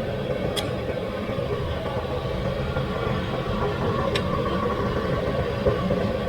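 Steady low background rumble, like traffic or machinery, with two faint clicks, one about half a second in and one about four seconds in.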